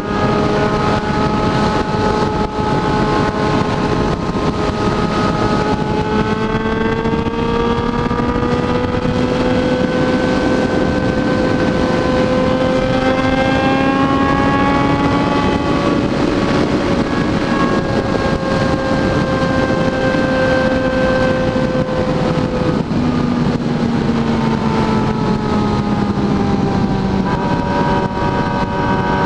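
Inline-four sport motorcycle engine running under way, loud, over a steady rushing noise. Its pitch holds, then climbs slowly for about ten seconds and eases back down. It drops sharply about two-thirds of the way through and shifts again near the end.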